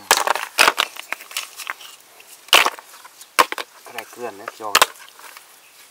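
Hard river snail shells clacking as they are dropped by hand into a plastic basket and knock against the shells already in it: about six sharp clicks, spread out irregularly.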